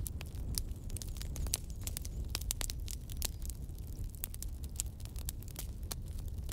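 Irregular sharp crackles and small clicks, several a second, over a steady low rumble.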